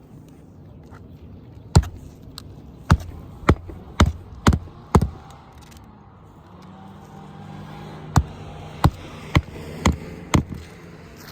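Nails being driven into roof shingles: two runs of sharp strikes about two a second, six and then five, with a pause between. A steady low hum comes in about halfway through.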